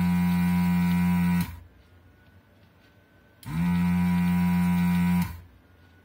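Pro'sKit SS-331H desoldering gun's vacuum pump buzzing in two bursts as the trigger is pressed, sucking molten solder out of the through-hole legs of a tactile switch. The first burst stops about a second and a half in; the second runs from about three and a half to just over five seconds.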